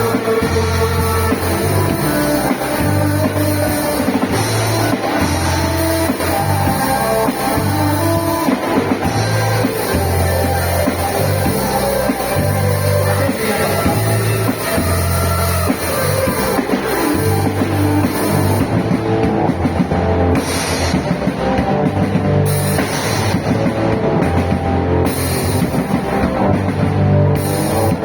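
A live band plays loudly and steadily: a drum kit, a pulsing bass line and guitar in a rock style.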